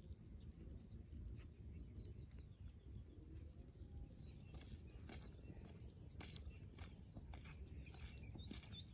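Quiet rural outdoor ambience: a steady low wind rumble on the microphone with a few faint bird chirps, and scattered soft clicks and taps in the second half.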